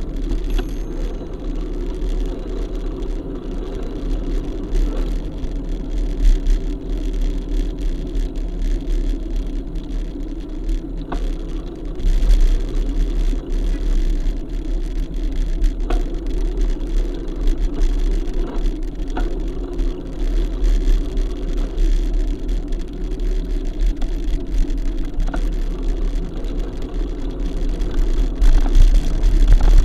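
Steady engine drone from a moving road vehicle, with low wind rumble on the camera's microphone and a few short clicks or knocks.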